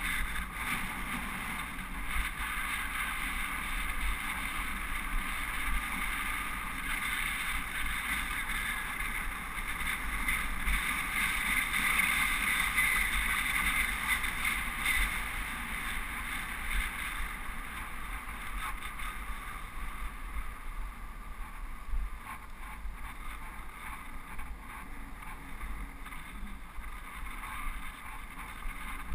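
Wind rushing over a helmet-mounted GoPro and road noise from a bicycle riding on rough asphalt, a steady rushing hiss that swells about twelve seconds in and eases off in the second half.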